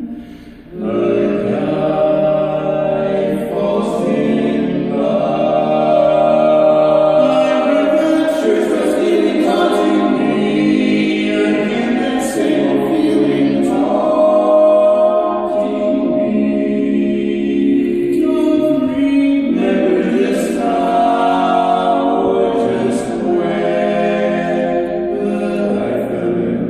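A barbershop quartet of four men singing a cappella in close four-part harmony, with long held chords. The singing breaks off briefly near the start and comes back in about a second in, sounding in a bare, hard-walled racquetball court.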